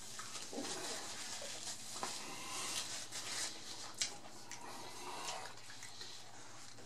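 Close-miked chewing: wet mouth sounds and small irregular smacks and clicks, with one sharper click about four seconds in.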